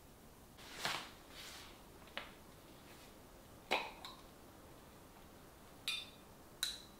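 Kitchenware being handled: a soft swish about a second in, then a handful of separate light knocks and clinks, a few of them with a brief ringing tone like ceramic or glass touching.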